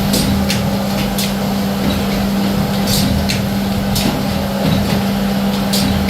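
Zipper-making factory machinery running: a steady mechanical hum with short, sharp hissing ticks at irregular intervals.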